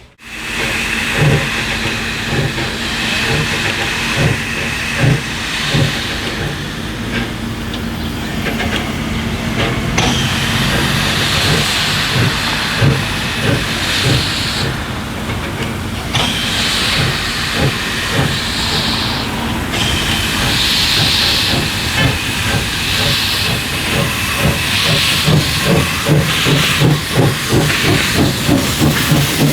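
Steam locomotive working, its exhaust beating in a regular chuff with repeated bursts of hissing steam.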